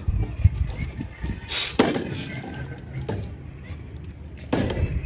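Plastic water bottle being flipped and knocking down onto a wooden tabletop, with sharp thuds about a second and a half in and again near the end, over a low steady rumble.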